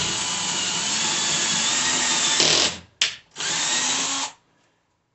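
Cordless drill boring a pilot hole through drywall into the centre of a wooden wall stud. It runs steadily for about two and a half seconds and stops, gives one very short burst, then runs again for about a second before stopping.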